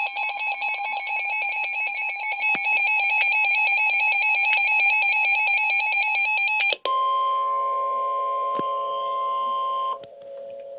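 Weather radio emergency alert tones: a fast pulsing electronic alarm for about seven seconds, then an abrupt switch to a steady single high tone that cuts off about three seconds later, leaving a faint steady hum. They announce a severe thunderstorm warning.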